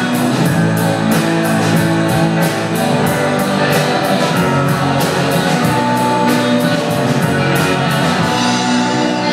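Indie rock band playing live: electric guitars holding sustained chords over a drum kit, with steady cymbal strikes about four a second that drop away near the end.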